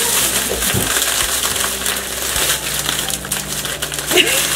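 Crinkling and rustling of a plastic snack packet being handled, with scattered small clicks.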